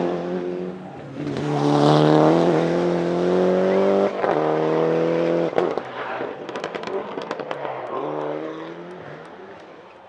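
Toyota Celica GT-Four ST185 Group A rally car's turbocharged 2.0-litre four-cylinder engine accelerating hard through the gears, its pitch climbing and then dropping at each upshift, about one, four and five and a half seconds in. After that the engine note fades away, with a run of sharp crackles.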